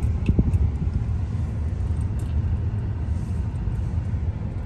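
Steady low rumble of a car driving on the road, engine and tyre noise heard from inside the moving car, with a couple of faint knocks about half a second in.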